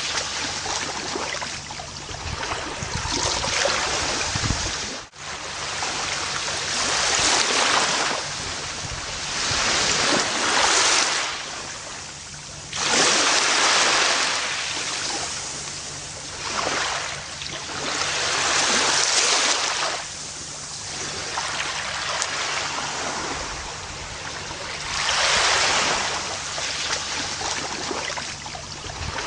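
Gentle ocean surf washing onto a beach, swelling and fading in waves every few seconds. The sound drops out for an instant about five seconds in.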